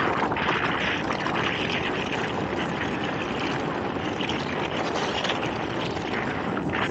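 Rigid inflatable boat (RIB) travelling at speed: a steady rush of water along the hull, with wind buffeting the microphone.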